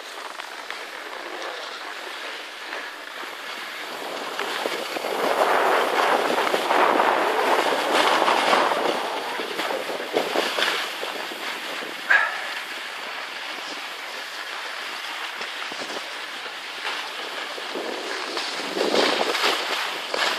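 Skis sliding and scraping over packed snow as a steady hiss, louder for a few seconds about a quarter of the way in and again near the end, with one short sharp sound about twelve seconds in.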